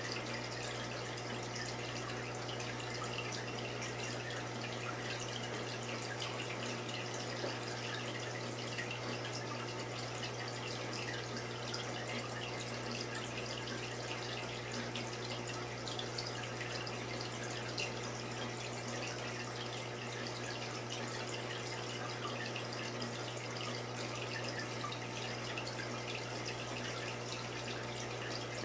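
Saltwater aquarium's water circulation: steady trickling and dripping of moving water over a constant low hum from the tank's running equipment.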